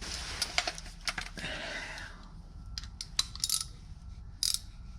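Metal hand tools clinking and rattling: a ratchet and socket being picked up and readied for a tight transmission-mount bolt. There is a rustling at first, then a few sharp separate clicks.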